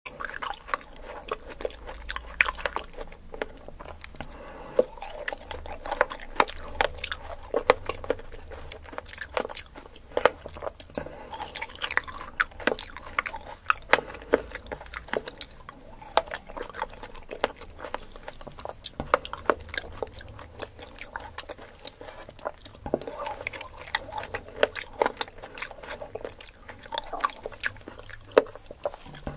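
A person biting and chewing fresh fruit, with many sharp crackling clicks throughout.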